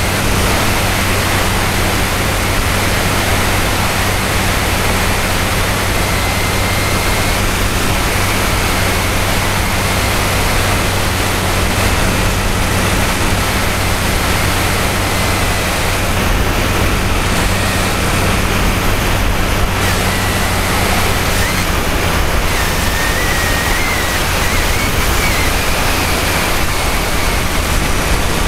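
Radio-control model airplane in flight, heard from a keychain camera riding on it: a loud, steady rush of wind over the camera with the drone of the plane's motor and propeller underneath. A faint high whine wavers in pitch in the second half.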